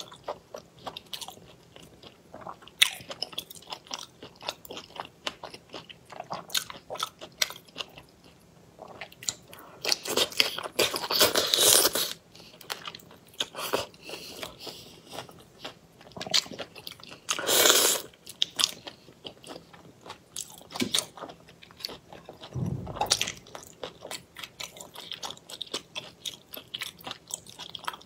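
Close-miked eating of raw shrimp in chili marinade: wet biting, crunching and chewing with many small sharp clicks of mouth and teeth. Two longer, louder eating sounds stand out about ten seconds in and again about seventeen seconds in.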